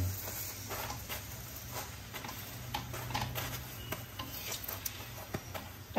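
A paratha shallow-frying in ghee on a flat tawa sizzles lightly while a perforated metal slotted spoon presses and scrapes it against the pan, making many small irregular scraping clicks.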